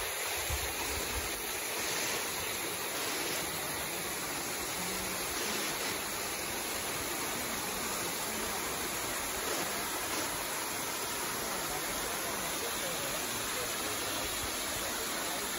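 Small waterfall spilling over rock ledges into a pool: a steady rush of falling, splashing water.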